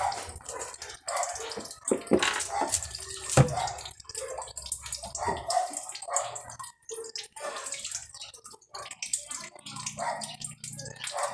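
Water dripping and trickling, heard as irregular light drips and taps.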